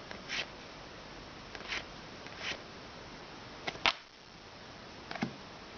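Trading cards from a freshly opened booster pack being handled and slid past one another: a few short, soft swishes and clicks spaced a second or so apart, with two close together near the middle.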